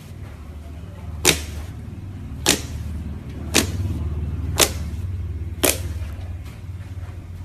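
Slime being played with, giving five sharp pops about a second apart over a low steady hum.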